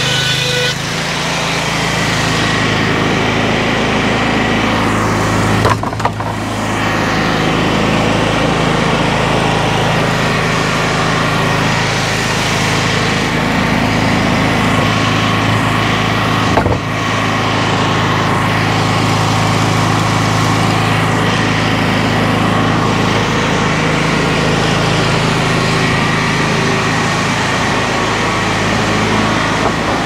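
A board edger's small engine running steadily under load while a board is ripped through its saw blades, with a couple of brief knocks along the way.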